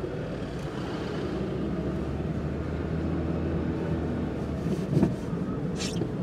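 Car engine and tyre noise heard from inside the cabin, a steady low hum while driving slowly. A single thump about five seconds in, followed by a short hiss.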